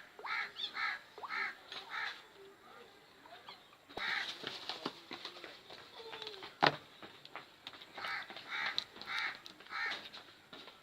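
A bird calling in two runs of about five evenly spaced calls each, one at the start and one near the end, with a single sharp click about two-thirds of the way through.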